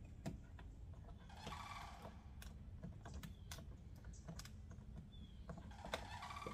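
Faint, irregular small clicks and taps of fingers handling and pressing on the van's plastic rear-door window trim, with a couple of short scratchy sounds, one about a second and a half in and one near the end.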